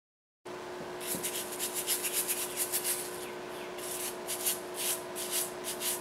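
Hands rubbing the skin of a fresh ginger root: a run of quick scratchy strokes, fast at first and more spaced out after about three seconds in.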